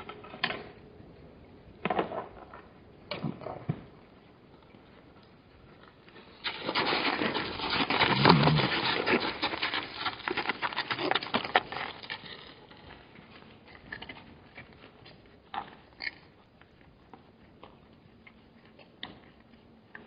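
Gemsbok hooves clattering on hard, dry ground as startled animals bolt. A dense run of hoofbeats a few seconds long comes in the middle, with scattered single hoof knocks before and after.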